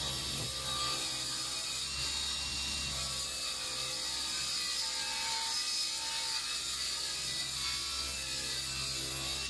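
Table saw ripping a strip of sapele along the fence, the blade cutting steadily through the wood under load.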